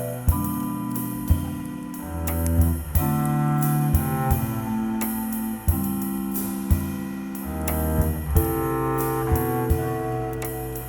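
Live jazz trio playing a slow ballad: Musser vibraphone chords ringing and held over a bass line, with the drummer's soft cymbal and drum strokes marking the time.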